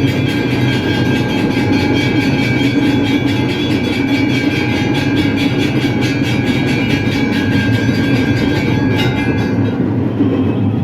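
Temple bells and percussion clanging continuously in a fast, even beat during an aarti, with several steady ringing tones over it. The highest ringing drops away near the end.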